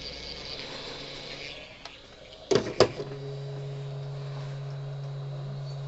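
Two sharp clicks about two and a half seconds in, followed by a steady low electrical hum.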